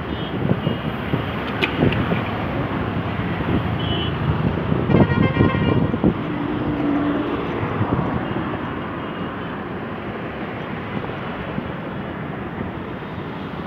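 Busy road traffic: a steady rumble of bus and motorbike engines, with vehicle horns honking a few times, the loudest and longest about five seconds in.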